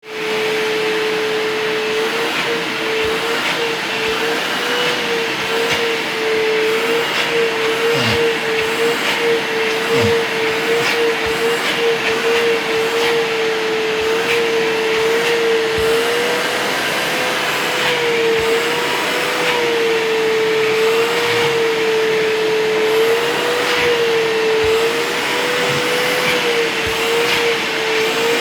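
Vacuum cleaner running continuously, its nozzle worked over a cat's fur. The motor's steady hum wavers slightly in pitch, with a few soft knocks.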